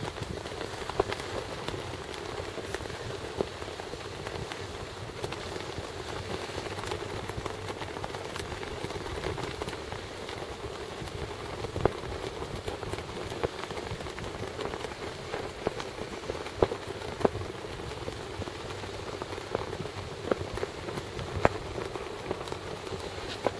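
Steady rushing noise of wind on the microphone, dotted with many short crackles and pops.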